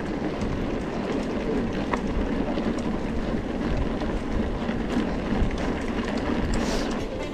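Mountain bike rolling along a dirt trail: a steady rumble of tyres and rattling bike parts, with a few sharp clicks.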